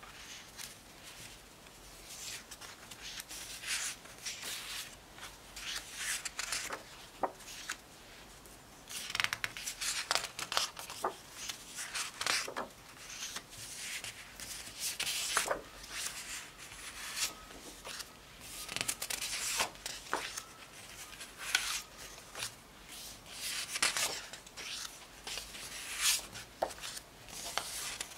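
Sheets of 6x6-inch patterned designer paper being picked up, turned over and laid back on a stack: irregular papery swishes and rubs every second or two, with a few short sharp ticks.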